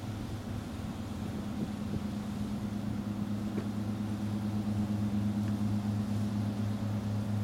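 A steady low mechanical hum, like an engine running, growing slightly louder.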